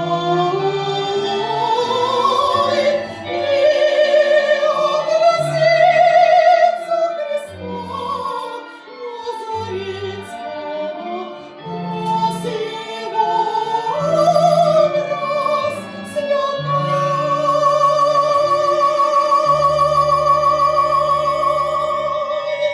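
Female operatic voice singing with wide vibrato over bell accompaniment with sustained ringing tones, ending on one long held note in the last six seconds.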